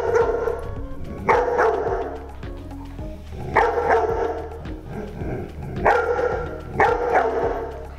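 Black Labrador Retriever barking repeatedly, a loud bark every second or two. The barking is a seizure response dog's trained alert to a person collapsed on the floor, meant to keep going until help comes.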